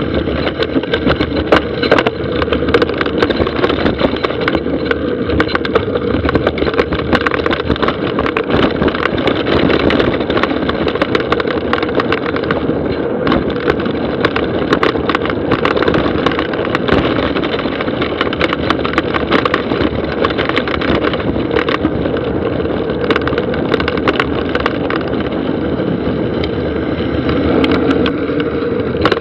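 Mountain bike riding fast down a dry dirt trail: a continuous rush of tyre and wind noise, broken by many quick clatters and knocks as the bike rattles over bumps, picked up on the action camera's own microphone.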